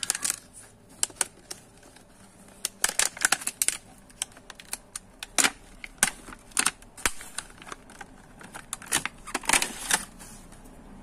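Plastic packaging being handled and opened: irregular crinkles and sharp clicks in clusters, dying away about ten seconds in.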